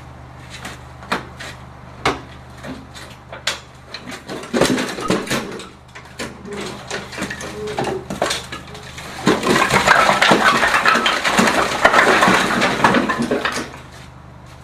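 Hard objects knocking and clicking at irregular moments, then a dense clattering rattle for about four seconds that stops near the end.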